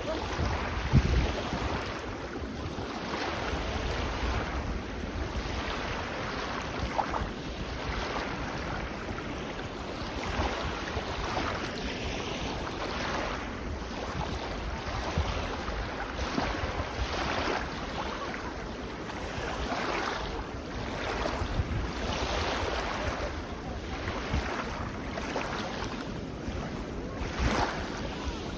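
Small waves washing in on a beach, the surf hiss swelling and fading every second or two, with wind buffeting the microphone in low rumbling gusts.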